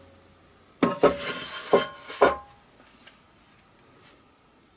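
Painted sheet-metal housing of an SMA Sunny Boy inverter disconnect clanking a few times over about a second and a half as it is handled and set down, each knock ringing briefly.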